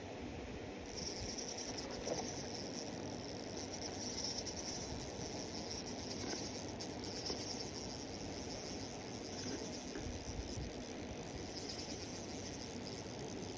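High, steady insect-like trilling over a low outdoor background noise, starting about a second in.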